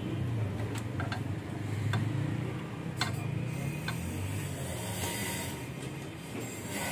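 Irregular light metallic clicks from a long steel bar worked against the valve gear of an opened tractor diesel cylinder head, over a low steady drone.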